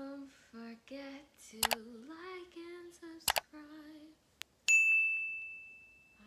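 Subscribe-button animation sound effects: mouse clicks a little under two seconds in and again about a second and a half later, then a bell ding that rings out and fades slowly.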